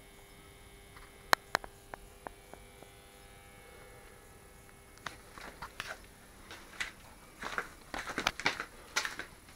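Small handling noises from wiring work at a car's fuse box: two sharp clicks about a second and a half in and a few lighter ticks after. From about five seconds in, irregular scuffs, rustles and knocks as someone moves around the car, with footsteps on a concrete garage floor near the end.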